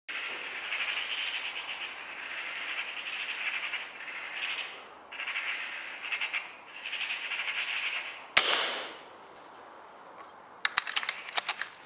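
Magpie chattering in harsh rattling bursts for about eight seconds, then a single loud shot, followed near the end by a quick run of sharp clicks.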